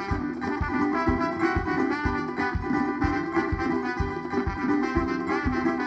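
A band playing an instrumental passage: a melody line over a steady, evenly spaced drum beat.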